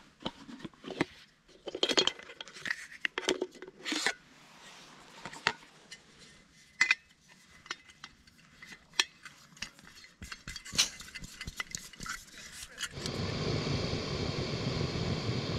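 Metal and plastic parts of a Jetboil stove clinking and knocking as the burner is screwed onto its gas canister and the pot fitted. About 13 seconds in, the gas burner lights and runs with a steady hiss.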